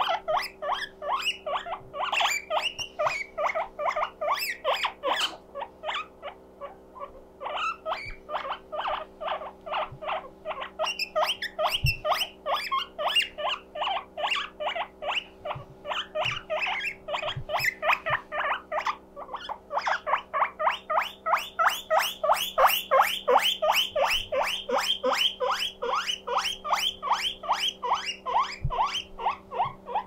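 Guinea pig wheeking: a long, rapid run of short, loud calls at several a second, growing louder about twenty seconds in. This is the 'puipui siren' call that the owner says comes when the guinea pig is lonely.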